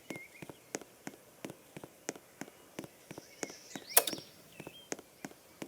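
Footsteps in snow at a steady pace, about three steps a second, with a few faint bird chirps and one sharper click about four seconds in.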